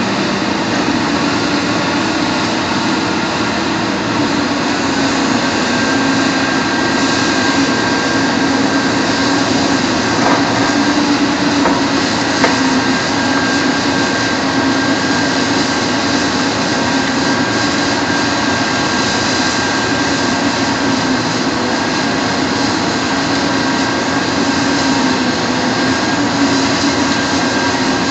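Caterpillar 330 hydraulic excavator's diesel engine running steadily under load as the machine works a heavy concrete block.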